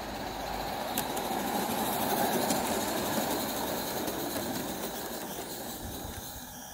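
Live-steam garden-scale model of Beyer Peacock 2-4-0T No. 5 Mona running past with its coaches on 45 mm track, the running of the train loudest about two seconds in and then slowly fading as it draws away, with a couple of sharp clicks.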